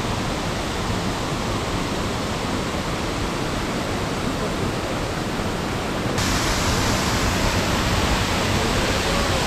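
Steady rush of fast-flowing water, swollen by heavy rain upstream. It grows louder and brighter about six seconds in.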